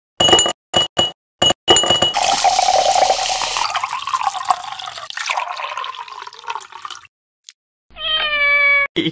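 Ice cubes dropped into a glass, making several sharp clinks that ring briefly, followed by liquid poured into the glass for several seconds. Near the end, a cat meows once.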